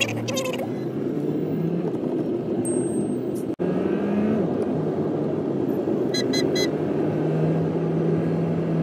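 Car engine and tyre noise heard from inside the moving car's cabin: a steady low hum. About six seconds in, four short high-pitched beeps in quick succession.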